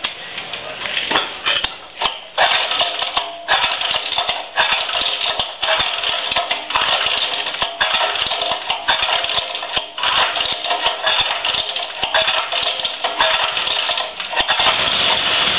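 Single-cylinder 3 hp Briggs & Stratton engine on a Merry Tiller running unevenly, its sound rising and falling about once a second, then settling into a steady run near the end. It has just been started after sitting unused for seven months.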